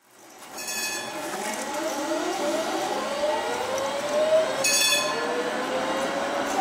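GVB tram passing, its electric traction motors giving a whine that rises slowly in pitch as it gathers speed. Two short metallic rings sound about a second in and again near five seconds.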